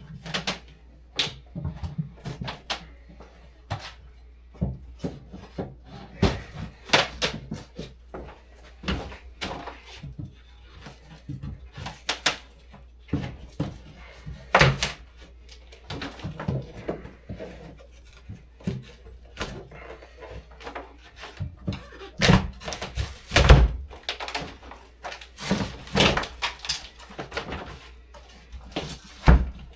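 Interior demolition work: a long run of irregular knocks, thuds and clatter, with a cluster of heavier thuds about two-thirds of the way through.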